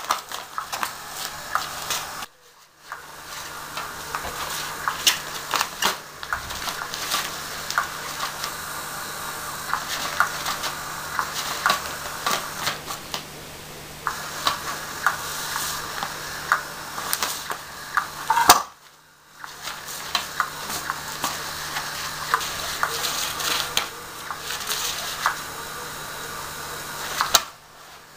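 Battery-powered Cat's Meow toy running, its motor whirring as the wand sweeps round under the nylon cover, with rustling and many sharp clicks. The whirr stops briefly three times: about two seconds in, about two-thirds of the way through, and near the end.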